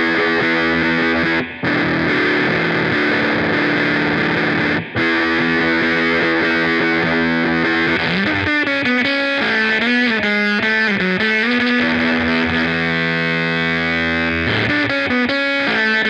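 Electric guitar played through fuzz distortion and modulation pedals: sustained fuzzy chords, cut off briefly twice, then from about eight seconds in a wavering, bending single-note lead line.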